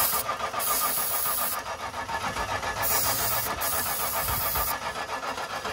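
A Land Rover Discovery II's starter cranks the engine over in an even, steady rhythm without it catching: the no-start fault. Spells of hiss come and go over the cranking.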